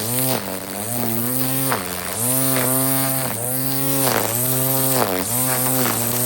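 Battery-powered string trimmer (weed eater) running at speed: a steady electric motor hum with a high whine. Its pitch dips briefly and recovers every half second to a second as the line meets the grass and the motor slows under load.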